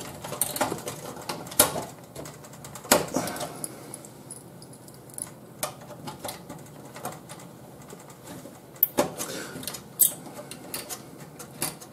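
A screwdriver working inside a DVD player's sheet-metal chassis to free a small circuit board: irregular small clicks, scrapes and rattles of metal and plastic, with a few sharper clicks.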